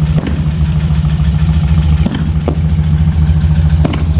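Steady low engine drone, with about five sharp distant firework bangs scattered over it, two of them close together near the end.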